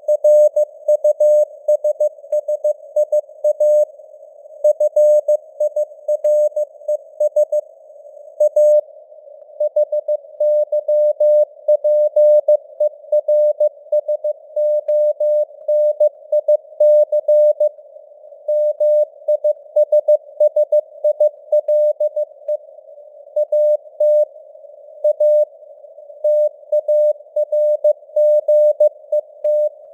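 Morse code (CW) at 15 words per minute: a single steady tone keyed on and off in dots and dashes with short gaps between letters and words, spelling out news headlines over simulated radio band noise.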